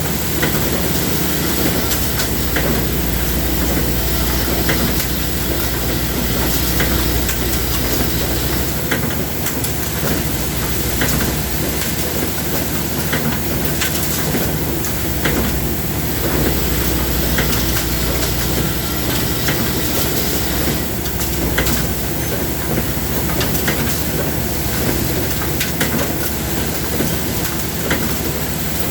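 Industrial machinery running steadily, with dense mechanical noise and scattered clicks. A low hum drops away about nine seconds in, returns around sixteen seconds and drops out again around twenty-one seconds.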